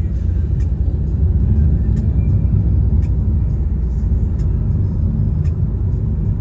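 A car driving, heard from inside: a steady low rumble of road and engine noise.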